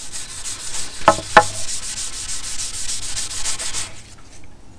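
A green abrasive pad rubbing hard wax oil into a grey-stained pine board in quick back-and-forth strokes, with two short pitched squeaks a little over a second in. The rubbing stops shortly before the end.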